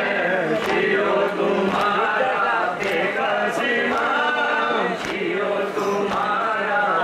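Crowd of men chanting a noha, a Shia lament, together in unison. Sharp slaps of hands striking chests (matam) come about once a second.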